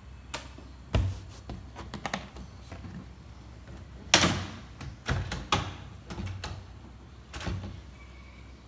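Knocks and clunks of a rack flight case's aluminium-edged panel being handled as it is taken off. The loudest knock comes about four seconds in, with lighter clicks in between.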